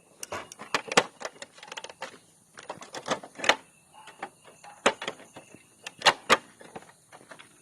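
Irregular clicks and knocks of motorcycle fairing panels and a cover being handled and fitted back on, with a few sharper knocks in the second half.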